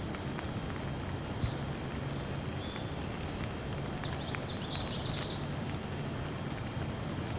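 Steady rain with occasional drop taps, and birds chirping over it. A rapid burst of high chirps about four to five seconds in stands out above the rain.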